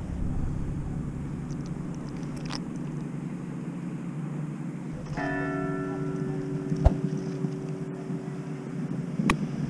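A bell rings out about five seconds in; its higher tones fade quickly and the low tones hang on for several seconds. Under it runs a steady low hum, and there is a single sharp click near seven seconds.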